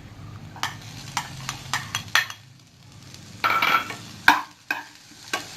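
Chopped vegetables frying in oil in a pan while green beans are tipped in and stirred: a cooking utensil clicks and scrapes against the pan several times over a sizzle, with a louder scrape about three and a half seconds in.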